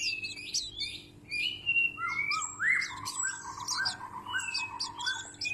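White-breasted white-eye singing: a fast run of high, twittering chirps, then from about two seconds in a lower series of rising whistled notes that runs into a warbling trill.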